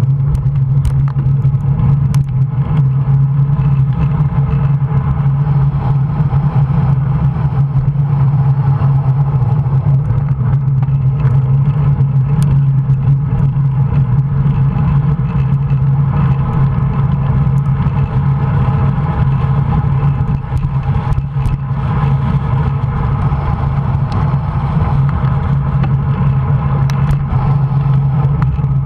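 Steady wind rush and tyre rumble picked up by a handlebar-mounted camera on a moving road bike, with occasional small knocks from bumps in the road.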